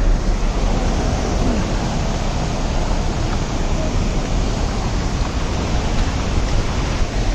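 Steady rushing noise of a floodwater torrent pouring down beside and across the road, mixed with the car's road and engine rumble, heard through the open car window.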